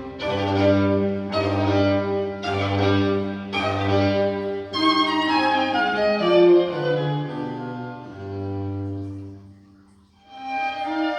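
Recorded classical string music played through vintage Lafayette alnico loudspeakers: bowed strings with low notes struck about once a second, then a falling phrase, a brief hush near the end and the strings coming back in.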